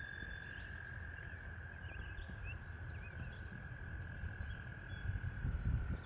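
Outdoor ambience with a steady, unbroken high-pitched trill from frogs calling at a pond, small bird chirps over it, and low wind rumble on the microphone that swells near the end.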